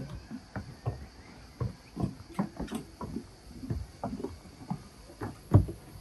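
Footsteps of several people walking down a long flight of outdoor steps: irregular thuds, one to three a second, with one heavier step about five and a half seconds in.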